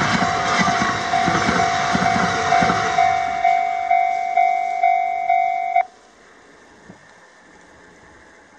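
A train rumbles across a Japanese level crossing, its wheels clattering over the rails, and fades out about a third of the way in. Meanwhile the crossing's electronic warning bell rings about twice a second, then cuts off suddenly a little past halfway as the train clears the crossing.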